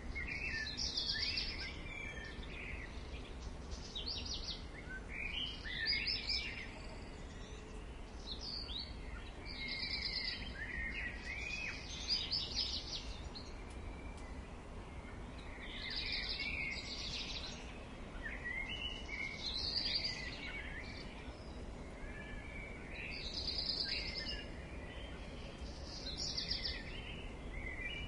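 Garden ambience at dawn: several songbirds sing in bursts of quick trills and chirps every few seconds over a faint steady low background rumble.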